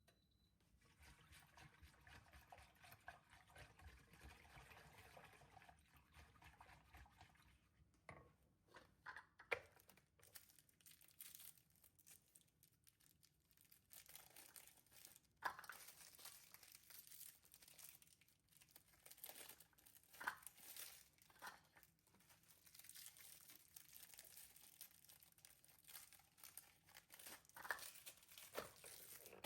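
Faint crinkling and rustling of things being handled, with a few light clicks and knocks.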